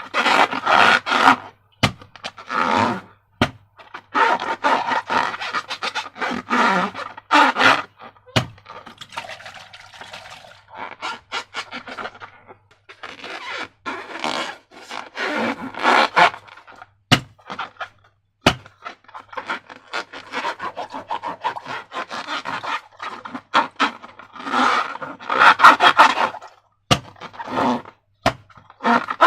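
Hands working slime and rubber balloons: irregular squishing, rubbing and scraping in bursts, with a few sharp clicks in between.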